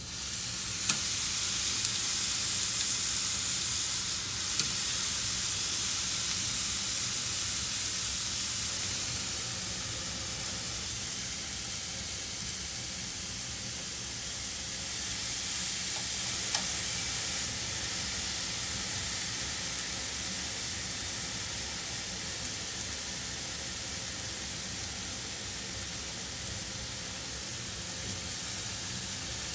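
Strips of raw meat sizzling on the hot grate of a Philips smokeless indoor grill: the sizzle jumps up as the meat goes on and carries on steadily, easing slightly after about ten seconds. A few light clicks of the metal tongs sound over it.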